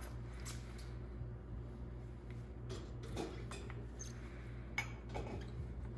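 Faint, scattered light knocks and clinks of glasses and cups being set into a dishwasher's top rack, over a steady low hum.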